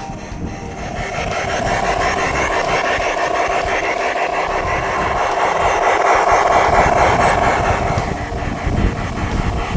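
Large-scale model steam locomotive running, a steady mechanical rasping rumble that builds over the first two seconds and eases a little near the end.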